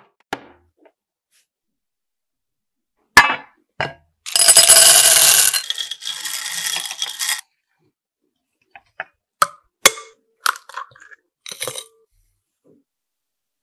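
Dark chocolate chips rattling and clinking in a glass bowl as a wire whisk stirs them, loudest at first and then settling. Later come a few separate sharp taps and clicks on a glass bowl.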